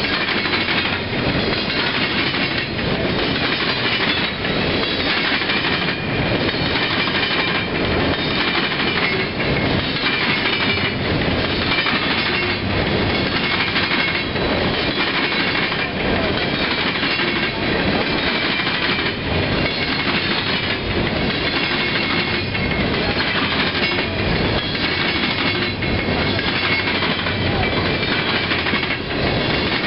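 Freight train of gondola cars rolling steadily past, with the steel wheels clacking over the rail joints in a repeating rhythm.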